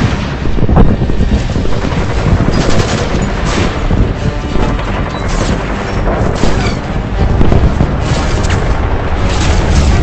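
Film sound effects of an air battle: dense, rapid gunfire mixed with explosions, starting abruptly.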